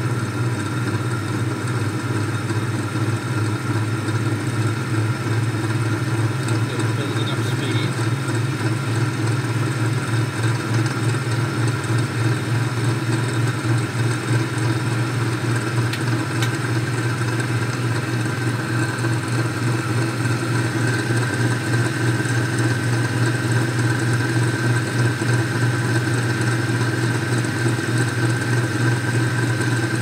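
Spin drier of a vintage Rolls Rapide twin-tub washing machine running empty: a steady electric motor hum with a higher whine that climbs a little in pitch about two-thirds of the way in as the drum gathers speed.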